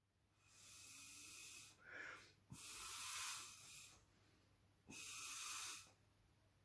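Three blows of air through a drinking straw, each lasting about a second, pushing drops of wet paint across paper to spread them into branch shapes.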